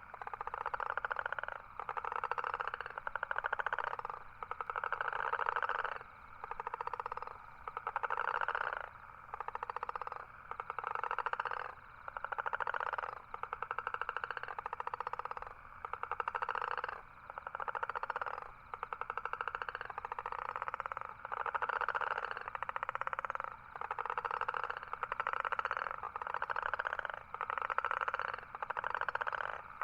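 Toad calling: a long series of rapid buzzy trills, each about a second long, repeated about every second and a half with short gaps between them.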